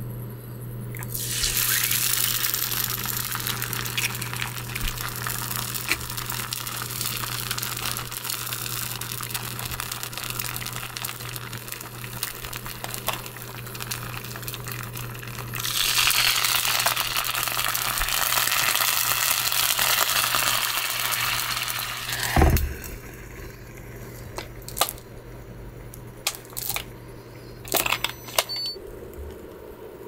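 Egg frying in a steel frying pan on an induction cooktop, sizzling from about a second in. Midway water is poured into the hot pan and the hiss grows louder as it turns to steam, then cuts down with a knock as the glass lid goes on; a few light clicks follow, over a steady low hum.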